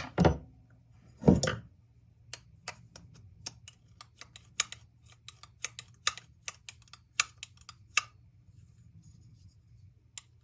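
Irregular light clicks and taps of hand tools and small metal parts on an old carburetor being taken apart, after two duller knocks in the first second and a half.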